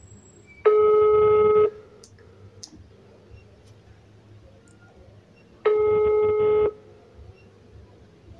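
Mobile phone ringback tone heard through the phone's speaker: two one-second tones about five seconds apart, the outgoing call ringing at the other end before it is answered.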